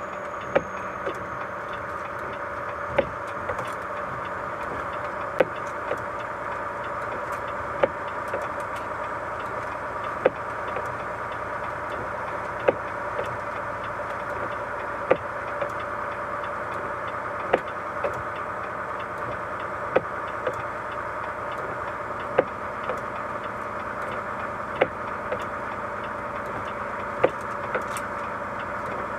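Steady road and tyre noise of a moving car, with a sharp tick about every two and a half seconds, each followed by a fainter one.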